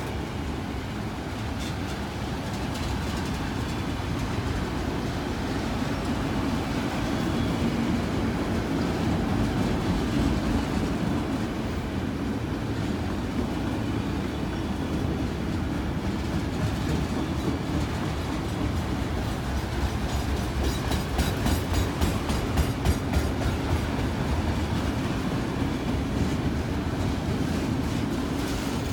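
Freight cars of a long Canadian Pacific manifest train rolling past, a steady rumble with the wheels clacking over rail joints, the clacks coming thick and rhythmic about two-thirds of the way in.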